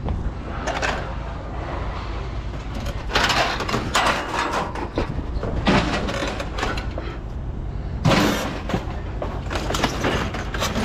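Scrap metal being handled, with several bouts of scraping and clattering over a steady low rumble.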